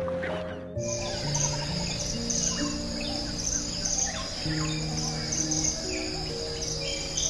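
Insect chorus of crickets trilling steadily in a pulsing high band, with scattered short bird calls, over slow, calm background music of long held notes. In the first second, fur seal colony calls are heard; they end with a sudden cut about a second in.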